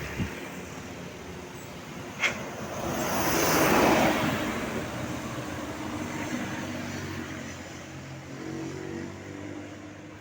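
Road traffic: a vehicle passes close by, its noise swelling to a peak about four seconds in and then fading, over the steady run of engines, with a short sharp click a couple of seconds in.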